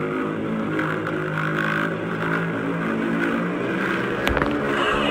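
Dubbed-in Godzilla atomic-breath sound effect: a steady, droning hum with low tones that shift in pitch, and a sharp crack about four seconds in.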